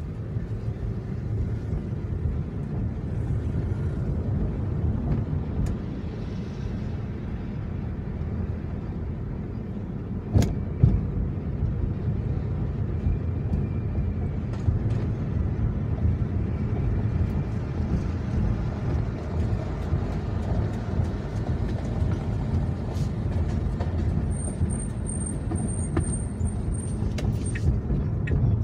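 Steady low rumble of a car's engine and road noise heard from inside the cabin, with two sharp knocks about ten seconds in and a thin high whistle for a few seconds near the end.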